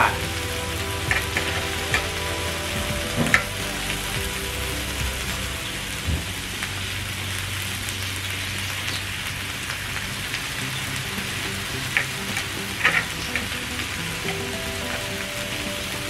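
Pork belly and green vegetables sizzling steadily on a tabletop Korean BBQ grill plate, with a few sharp clicks of metal tongs as the pieces are turned.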